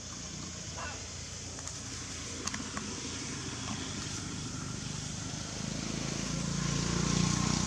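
Outdoor ambience: a steady high hiss with a low rumble that builds toward the end and eases off just after, and a few faint clicks about two and a half seconds in.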